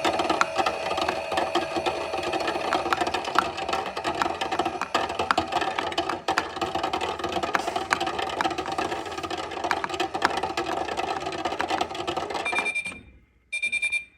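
Toy Miele washing machine running its wash cycle, a steady whirring with constant rattling clicks, which cuts off suddenly near the end and is followed by a short electronic beep.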